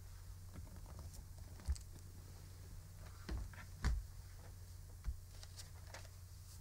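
A few faint short knocks and rustles from a person shifting in her seat and handling things, over a low steady hum.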